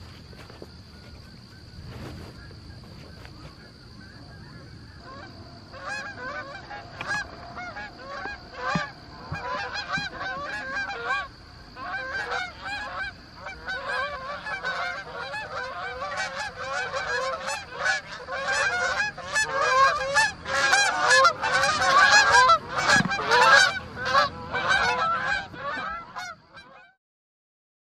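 A flock of Canada geese honking, many calls overlapping. The honking grows louder and busier as the flock comes in, then cuts off abruptly near the end. A steady high-pitched tone runs faintly underneath.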